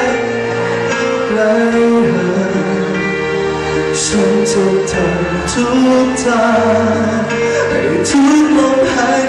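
A man singing a pop song live into a handheld microphone, with long held notes, backed by a live band on drums and keyboard.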